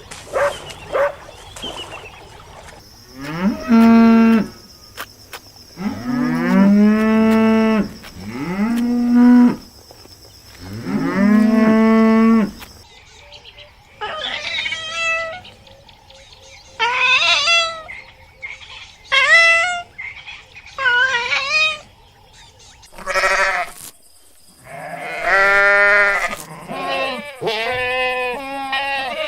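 Cattle mooing: a series of long, drawn-out moos, with a run of shorter, higher-pitched calls in the middle.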